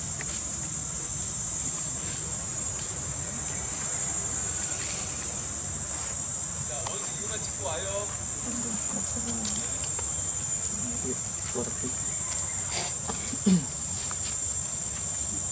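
Steady high-pitched drone of insects. Faint short calls come and go in the middle, and a brief louder low sound falling in pitch comes near the end.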